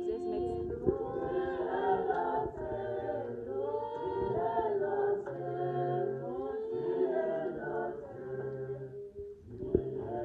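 A choir singing in harmony, several voices together, which thins out about nine seconds in, followed by a few sharp knocks.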